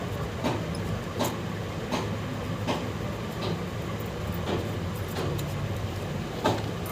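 Light ticks and taps a little under once a second as a soldering iron and desoldering wick work the solder off a phone's charging-port pads, over a steady low hum.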